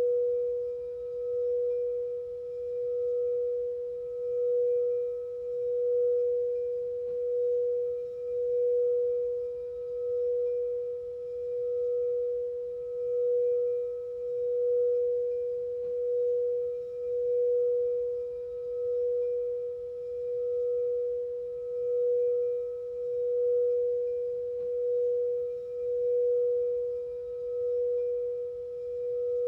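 Singing bowl sustaining one steady tone, with faint higher overtones above it. Its loudness swells and fades in a slow, even pulse about every one and a half to two seconds.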